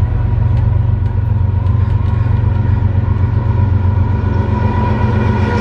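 Diesel locomotives of an approaching BNSF freight train, a loud steady engine rumble with a droning tone, growing brighter near the end as the lead units draw near.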